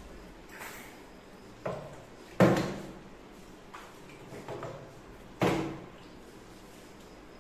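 A small bottle tossed in a bottle-flip and landing on a wooden tabletop: a light knock, then two loud knocks about three seconds apart, each clattering briefly as it settles.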